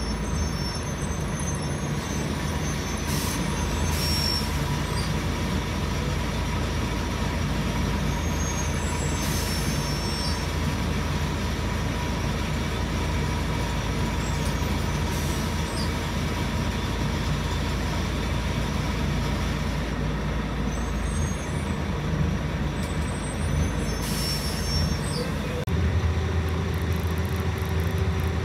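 Inside a Scania L113CRL city bus under way: its rear-mounted 11-litre straight-six diesel running steadily with a faint steady whine, and several short air hisses. The engine note changes about three seconds before the end.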